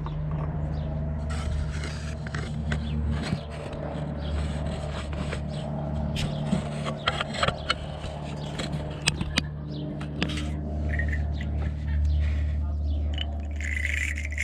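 Wire-brush battery terminal cleaner scraping and clicking on a battery cable clamp in irregular strokes, over a steady low hum.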